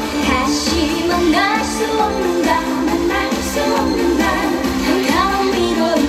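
A girl singing into a handheld microphone over a backing track with a steady beat.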